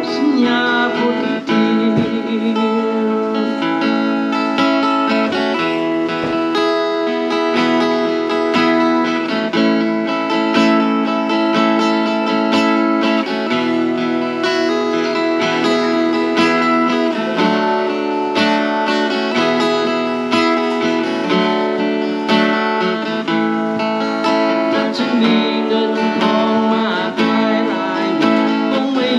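A guitar playing a continuous tune, a quick run of picked notes and chords.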